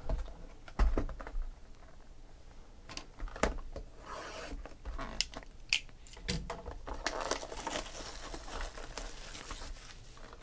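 A sealed Panini Select football card box being handled and set down on a table with several sharp knocks, then its plastic wrapping crinkling and tearing as it is opened.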